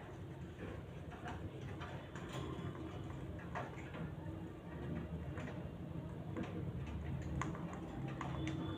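Irregular soft clicks and taps from small pet parrots moving about their cage, with a low steady hum underneath.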